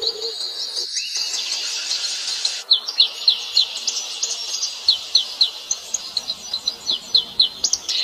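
A chorus of small birds chirping: quick, high, thin chirps repeated several times a second over a steady high insect buzz, with a brief break about two and a half seconds in.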